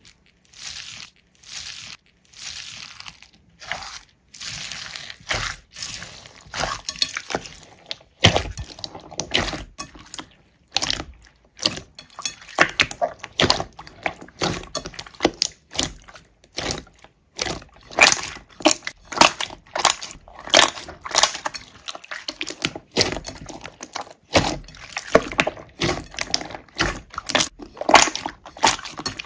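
Hands squeezing and stretching a big slime, making dense, irregular sticky clicks and pops. Longer squishy bursts come in the first few seconds, then quicker, crackly clicking.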